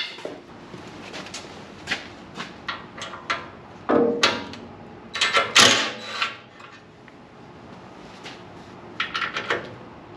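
Hand tools and metal parts clinking, knocking and scraping as a cover or muffler is unfastened from a small engine: irregular clicks, with a few louder rattling scrapes about four and six seconds in and a quick run of clicks near the end.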